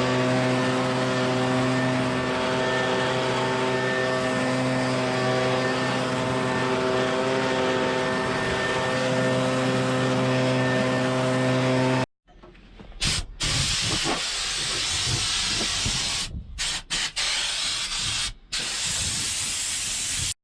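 Farm machinery engine running at a steady speed with a constant, even hum. About twelve seconds in it cuts off abruptly, giving way to a loud rushing hiss that drops out suddenly several times.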